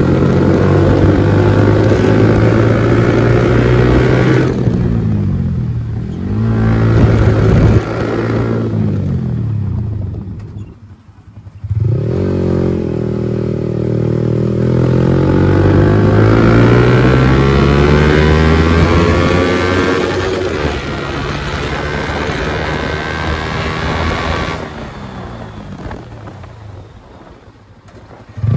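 Yamaha R15's single-cylinder engine through an aftermarket silencer, ridden at speed with the pitch rising and falling through throttle and gear changes. The note drops right away about ten seconds in and again near the end as the throttle is closed, then picks up again.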